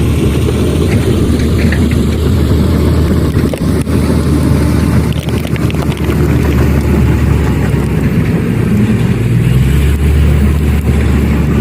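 Heavy diesel earthmoving machinery running steadily: a loud, low engine drone whose pitch shifts slightly as the load changes, with a few faint clanks about halfway through.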